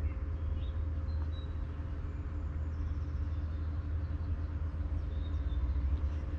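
Valtra N91's 4.4-litre four-cylinder diesel engine idling steadily, a low even rumble with a constant hum.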